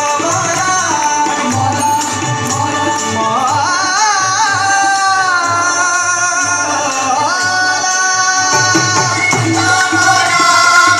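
Live qawwali: a group of singers with harmonium and tabla, the lead voice gliding up into long held notes over a steady drum beat.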